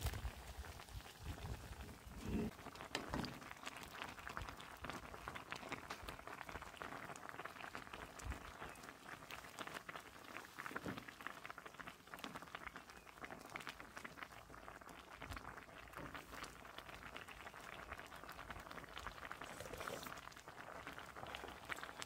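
A pan of doenjang soup with mallow and freshwater snails boiling: a soft, steady bubbling crackle, with a few faint low knocks early on and about halfway.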